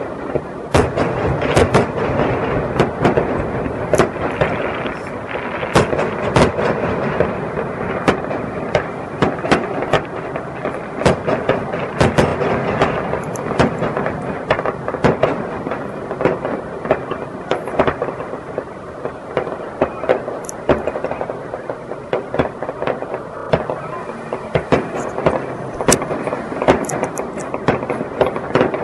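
Fireworks display: aerial shells bursting in quick succession, a dense string of bangs over a steady wash of noise.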